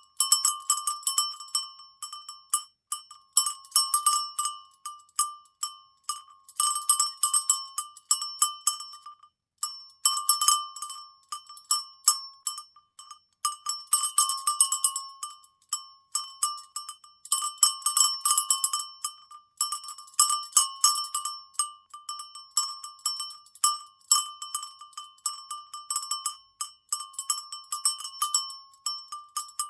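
Cowbell shaken in quick rattling clusters of clanks, each cluster ringing on one bright metallic note, with short gaps of a second or so between shakes.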